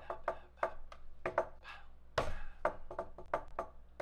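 Typing on a computer keyboard: an uneven run of sharp key clicks, several a second, with one heavier, deeper knock a little past halfway.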